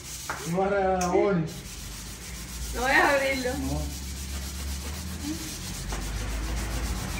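Hand sanding a primed door panel: abrasive paper rubbing back and forth over the flat surface. A person's voice comes in briefly twice, about a second in and about three seconds in.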